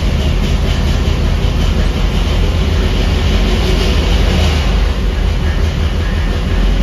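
377-cubic-inch Fontana Clevor V8 running steadily on an engine dyno during its break-in.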